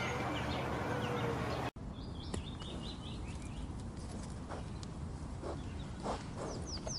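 Small birds chirping in repeated short, arched calls, broken by a sudden cut about two seconds in, after which sparser, higher chirps and a few quick falling chirps follow.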